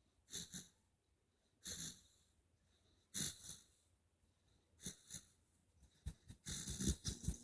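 Basset hound puppy snoring in its sleep: a wheezy breath about every one and a half seconds. Near the end there is a quicker, louder run of snorts and clicks.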